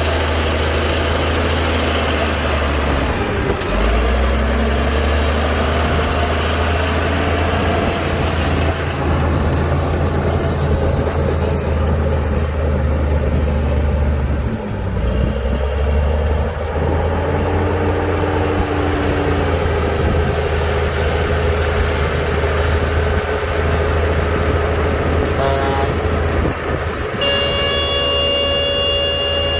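Heavy diesel engine of earthmoving machinery running with a deep, steady drone whose pitch shifts a few times as the load changes. A steady high tone with several overtones starts near the end.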